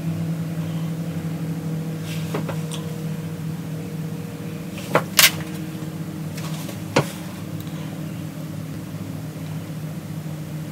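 Steady low mechanical hum, like a small motor or fan running, with two quick sharp clicks about five seconds in and another about two seconds later.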